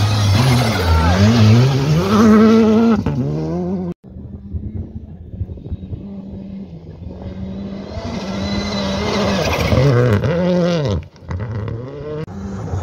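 Rally car engine at full throttle on a gravel stage, revving up and dropping through quick gear changes as it passes. The sound comes in three short takes: a close pass, a steadier, quieter run further off, then another pass with the pitch falling away.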